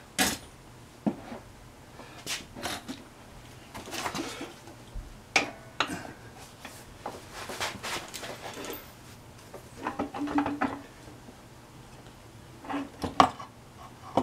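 Austin-Healey Sprite gearbox casing being slid onto the back of the engine: scattered metallic knocks, clinks and scrapes as it is worked over the dowel pin and onto the clutch splines, with a sharp knock near the end the loudest.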